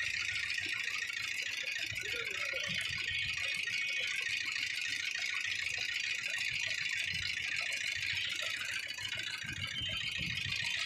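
Sugarcane juice roller machine running steadily, giving a continuous high-pitched mechanical sound at an even level, with low irregular street rumble underneath.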